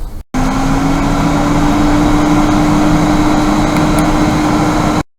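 Hot air rework station blowing steadily: an even rush of air with a steady fan hum that rises slightly in pitch as it starts, then cuts off suddenly near the end. Heat from the hot air is being used to lift the faulty TPS51916 memory power controller chip off the board.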